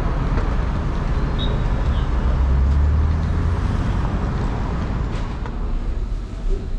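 Steady low rumble of a road vehicle in motion, swelling a little about two to three seconds in, with a brief faint squeal about a second and a half in.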